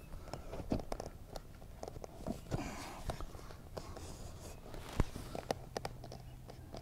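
Scattered light clicks and knocks of an aluminum rod and plastic bracket from a boat motor mount kit being handled and pushed together, with one sharper click about five seconds in.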